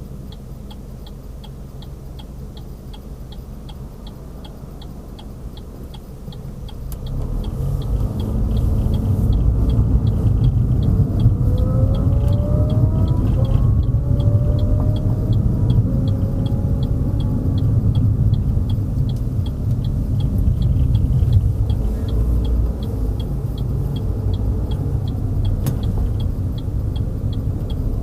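Car interior on a drive: the turn-signal indicator clicks steadily throughout, and about seven seconds in engine and road rumble swell as the car pulls away and accelerates, then holds at cruising level.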